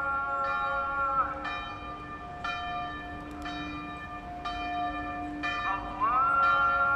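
A bell struck about once a second, each stroke ringing on, over a held high tone that slides off about a second in and glides back near the end.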